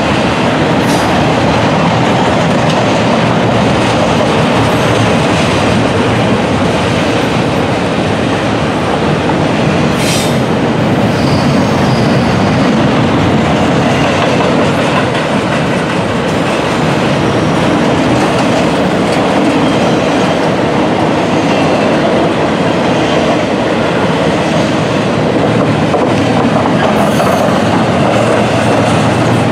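CSX double-stack intermodal freight train passing close by: the steady, loud rumble of its container well cars' steel wheels rolling on the rails, with a brief high squeal about ten seconds in.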